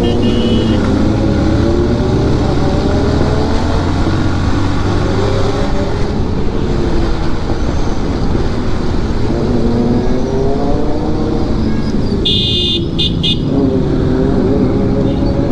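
Motorcycle engine running under way, its pitch rising and falling with the throttle, over road noise. Vehicle horns honk in a short burst about twelve seconds in.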